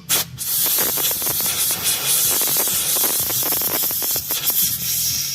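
Pressurised spray hissing continuously into a small-engine carburettor during cleaning, about five seconds long with a brief break just after it starts.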